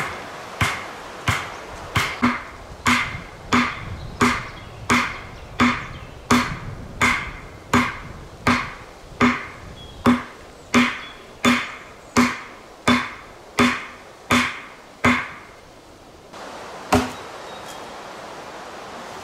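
Wooden stake being driven into the ground with blows from the back of an axe: steady, even strikes about every 0.7 seconds, each with a short ringing note. The strikes stop about three-quarters of the way through, with one last blow shortly after.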